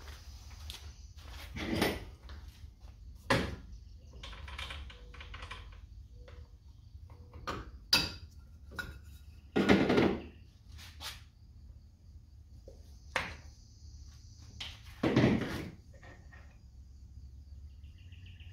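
Hand tools and the metal parts of an old push reel mower being handled on a table as a wheel is taken off: a series of separate knocks, clunks and scrapes, the loudest about ten seconds in and again about fifteen seconds in.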